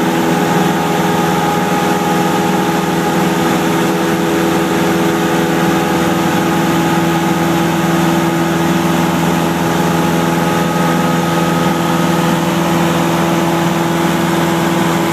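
Cessna 172's piston engine and propeller running steadily in cruise flight, heard inside the cabin as an even hum with several steady tones.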